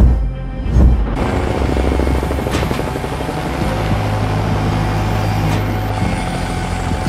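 Helicopter rotor beating steadily, with two deep booms in the first second.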